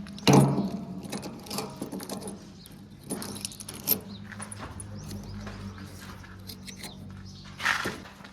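Diesel engine of a JCB 3DX backhoe loader running steadily, with sharp clanks and knocks over it: the loudest just after the start, others around three and four seconds in and near the end.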